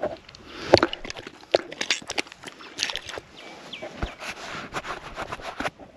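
Handling noise from an action camera as its fogged lens is wiped: irregular clicks, knocks and rubbing on the camera body right at the microphone, the sharpest knock less than a second in.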